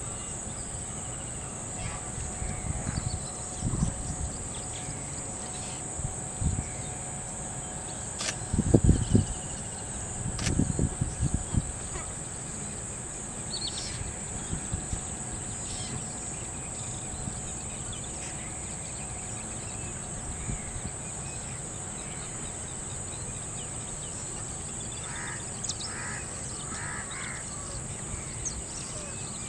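Outdoor wetland ambience with a steady high-pitched hiss, a run of low thumps on the microphone in the first half, and a few short bird calls, three or four in quick succession near the end.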